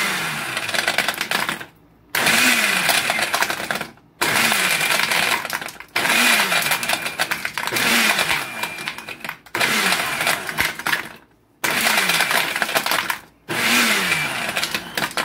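Hamilton Beach Smoothie Blender's 650-watt motor and stainless steel blades chopping plain ice cubes in its plastic jar with no liquid added. It runs in repeated pulses of under two seconds each, about every two seconds, with the ice rattling against the jar.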